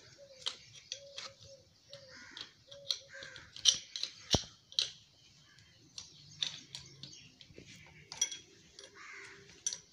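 Steel spanner clinking and ticking against the bolts of a diesel engine's crankshaft as they are tightened by hand: a string of sharp, irregular metallic clicks, the loudest a little over halfway through.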